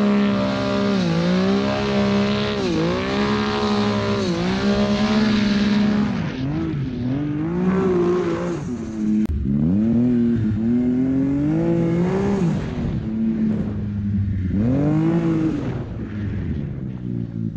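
Arctic Cat King Cat snowmobile's 800 two-stroke engine running hard under load through deep powder, its pitch dipping and rising again and again as the throttle is eased and opened.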